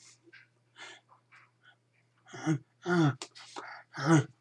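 A man's voice without clear words: soft breathy puffs, then about three short, loud voiced sounds that fall in pitch in the second half. A low steady hum sits underneath.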